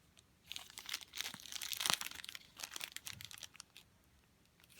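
Plastic packaging crinkling and crackling as it is handled and opened, in a run of short crackles that stops for the last second.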